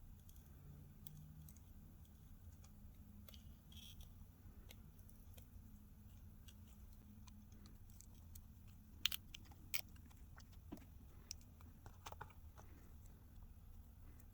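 Faint, scattered small clicks and taps of tools and parts being handled inside an opened smartphone, with two sharper clicks about nine and ten seconds in, over near silence.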